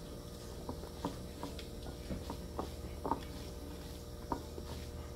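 Eating by hand: soft, irregular wet clicks and smacks of chewing and of fingers working rice and curry, about one or two a second, over a low steady hum.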